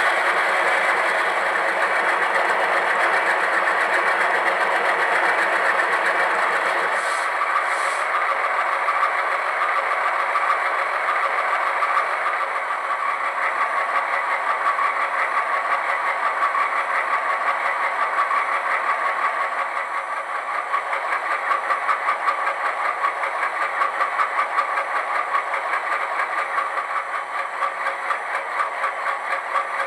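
Simulated ALCO diesel engine sound from an HO-scale Bowser C-628 model's LokSound decoder, played through its small fitted high-bass speaker. A steady engine drone loses its lowest layer about seven seconds in, then settles into a throbbing, pulsing idle.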